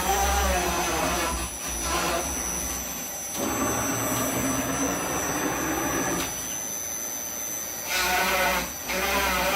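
CNC router at work: a steady high-pitched spindle whine over lower motor tones that shift in pitch and loudness every couple of seconds as the machine moves through its drilling and milling moves.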